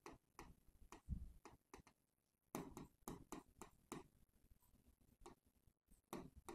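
Faint, irregular ticks and taps of a marker tip on a writing board as letters are written, over near silence.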